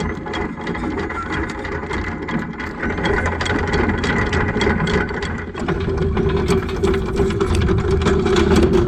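Boat's anchor windlass hauling in anchor chain: a steady motor hum with the chain links clattering in rapid succession as they come aboard.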